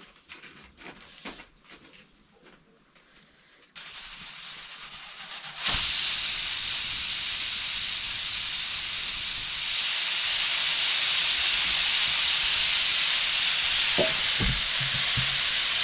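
Aluminium pressure cooker on a wood fire, steam jetting out of it in a loud, steady hiss that comes in about six seconds in. A few low knocks sound near the end.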